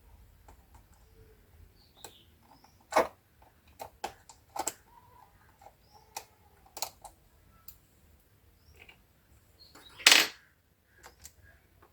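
Scattered plastic clicks and knocks as the laptop's bottom cover is worked at by hand, with a sharper click about three seconds in and a longer, louder one near the end.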